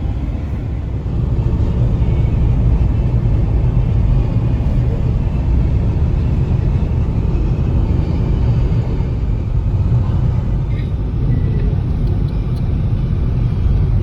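Steady low rumble of a vehicle driving along the highway, heard from inside the cabin: engine and road noise.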